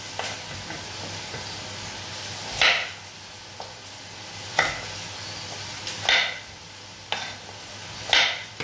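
Large kitchen knife cutting carrots into sticks on a wooden cutting board, four louder cuts a second or two apart, over a steady sizzle of onion frying in a pot.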